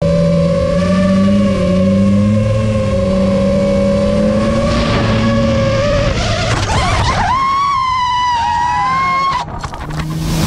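FPV racing drone's motors and propellers whining under throttle as it chases an ice-racing car. The whine steps up sharply in pitch about seven seconds in, eases down slowly, then cuts off abruptly about nine and a half seconds in.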